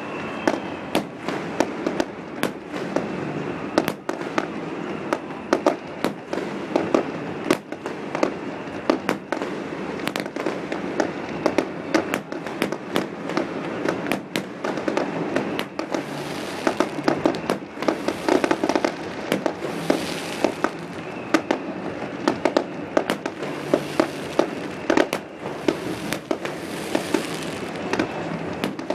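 Fireworks display: a continuous run of sharp bangs and pops, with several hissing swells in the second half.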